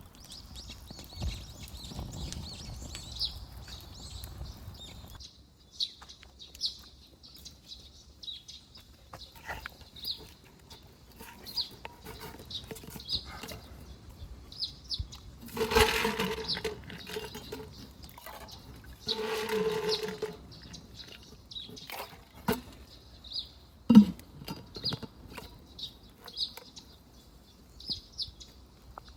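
Small birds chirping repeatedly in the background. About halfway through come two louder, noisy sounds of about a second each, a few seconds apart, and later a single sharp knock.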